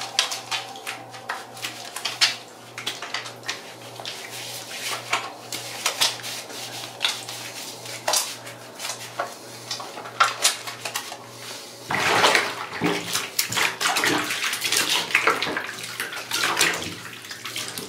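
Water splashing and dripping in a bathtub as an arm is washed in shallow soapy water, in many small splashes; about twelve seconds in the splashing becomes denser and louder.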